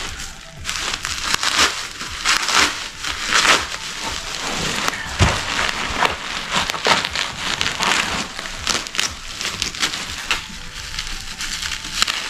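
Packaging crinkling and rustling in irregular bursts as boxed vinyl figures are handled.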